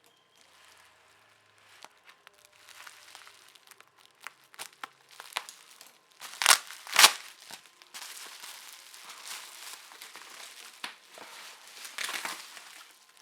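Shipping packaging being handled and unwrapped: crinkling and rustling with scattered clicks, and two loud, brief ripping sounds about halfway through.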